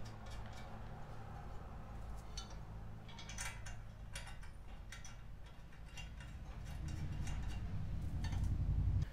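Light, irregular clicks and taps of black steel bumper parts and a trim clip being handled and fitted together by hand, over a steady low hum. A low rumble builds over the last two seconds.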